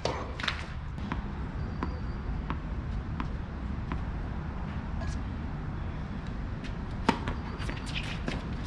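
Tennis ball bounced on a hard court, a sharp pop about every 0.7 s, then a hard racket strike about seven seconds in that starts the point, followed by several quick hits.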